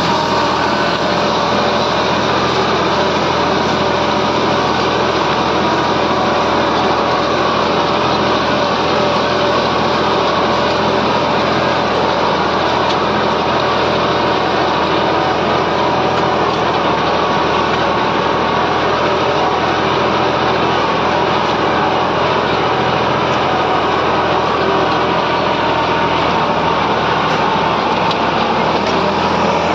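New Holland 5620 tractor's diesel engine running steadily under load as it pulls a cultivator through the soil.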